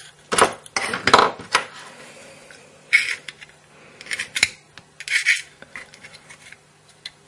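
Metal nail file scraping and clicking against the inside of a Zippo lighter's steel insert in irregular bursts, digging out the packed cotton balls. The busiest scraping comes in the first second and a half, with a few scattered scrapes and a sharp click later.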